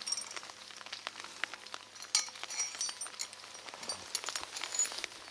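Handling noise from adjusting the weights on a homemade balance scale: scattered light clicks, rustles and a few brief metallic clinks, over a faint steady low hum.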